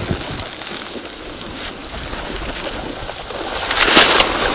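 A snowboard sliding over packed snow: a steady hiss mixed with wind on the microphone. It grows louder into a harsh scrape about four seconds in.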